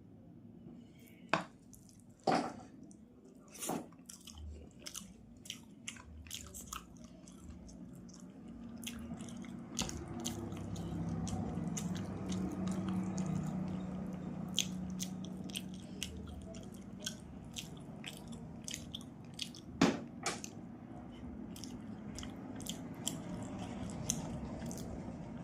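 Close-up chewing of rice and fish curry: wet mouth smacks and many sharp clicks, with a few louder clicks near the start and one about twenty seconds in. A low hum swells in the middle and fades.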